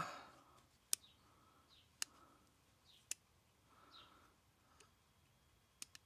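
Faint, sharp clicks of a small screwdriver working a tiny 10BA screw in a bronze bypass valve: three about a second apart, then a couple of softer ones near the end, with light scraping between.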